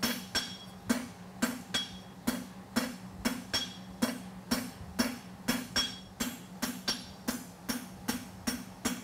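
Hand hammer striking a red-hot steel bar on the anvil, drawing out the end of a tong blank. A steady run of blows, about three a second, each with a short metallic ring.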